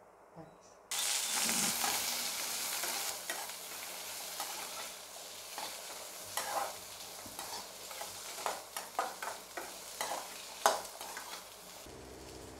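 Peeled shallots frying in a metal kadai. A sizzle starts suddenly about a second in and slowly dies down. A slotted steel spatula scrapes and clicks against the pan as the shallots are stirred.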